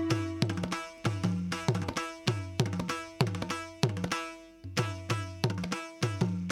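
Background music: a solo tuned hand drum playing a rhythmic pattern of sharp, pitched strokes.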